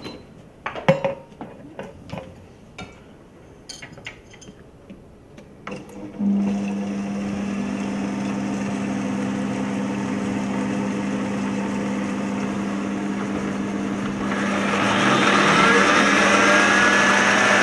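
Clicks and knocks of the lid being fitted on a stainless countertop blender jug. About six seconds in, its motor starts with a steady hum, blending liquid ingredients. Near the end it runs louder and harsher, as at a higher speed.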